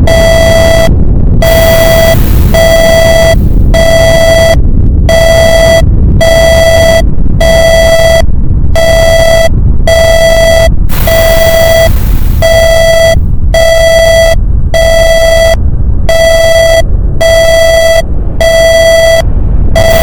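Emergency alert alarm: a buzzy electronic tone beeping about once a second, each beep just under a second long, over a loud continuous low rumble of volcano sounds.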